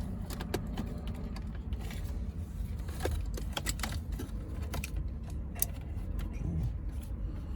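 Scattered small clicks and light rattles from plastic wiring-harness connectors and trim pieces being handled and fitted, over a steady low hum.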